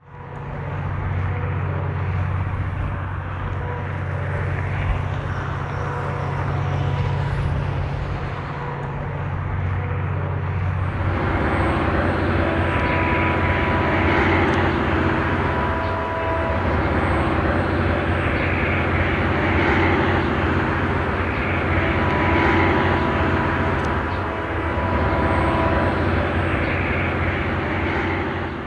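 Diesel locomotive engine running with a steady low drone. About eleven seconds in, a louder, rougher rumble joins it and holds steady.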